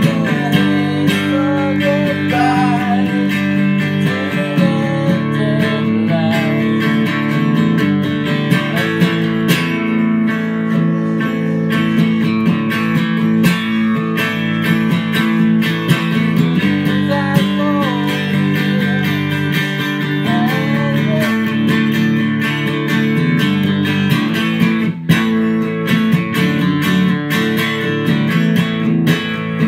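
Electric guitar music: a lead line with bent, wavering notes over steady, sustained chords, with a brief break about 25 seconds in.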